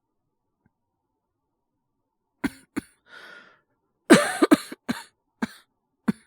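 A man's acted cold cough: two short coughs about two and a half seconds in, a noisy breath in, then a quick run of coughs, the loudest, about four seconds in, and two more single coughs near the end.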